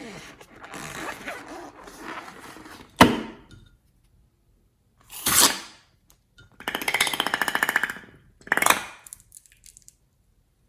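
Rubbing and crinkling handling noise, then a sharp crack about three seconds in. Later come two short crunchy bursts with a rapid crackling between them.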